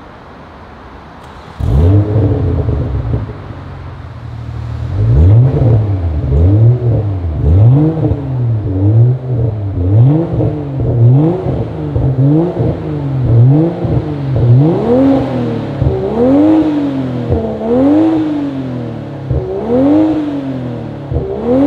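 BMW G20 M340i's 3.0-litre turbocharged straight-six through a Remus cat-back sport exhaust with valves, in Sport mode with the valves on auto. It starts up about a second and a half in with a loud flare, then settles to a steady idle. From about five seconds in it is revved in repeated quick blips, roughly one a second, each rising and falling in pitch.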